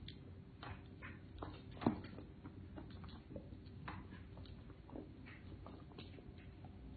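Quiet snuffling and scattered soft clicks of a Doberman sniffing at a cat at close range, with one louder short sound about two seconds in.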